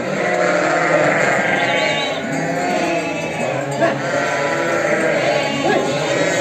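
A flock of ewes and lambs bleating continuously, many overlapping calls of different pitches.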